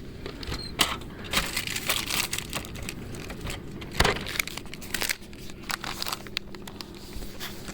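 Plastic packaging crinkling and rustling as it is handled in short, irregular crackles, with one sharper knock about four seconds in.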